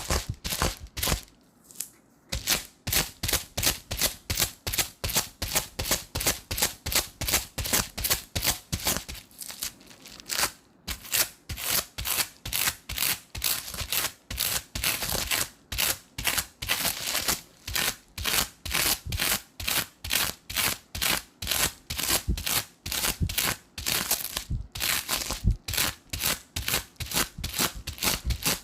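Adhesive tape pressed onto sticky glue residue and peeled off again and again, a short crackling peel about three times a second, with a few brief pauses.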